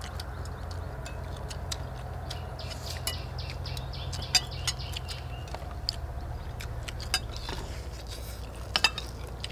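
Metal spoons clinking and scraping on plates while people eat: scattered sharp clicks, the loudest about four seconds in and a quick double click near the end, over a steady low rumble.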